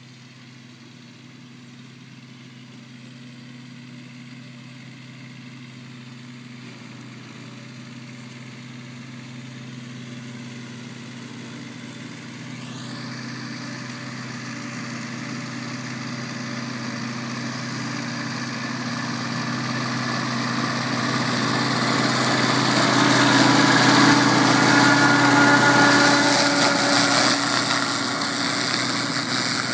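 Kubota 1550 compact tractor's diesel engine running steadily under load while its 1.40 m flail mower spins and cuts grass. It grows steadily louder as the tractor approaches, is loudest a few seconds before the end, then eases off slightly.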